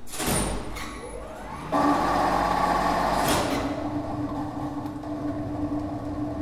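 Two-speed lift winch with a squirrel-cage induction motor starting up. There is a sharp clack at the start, then the motor spins up with a rising whine and settles into a steady hum and whine at running speed. A second clack comes about three seconds in.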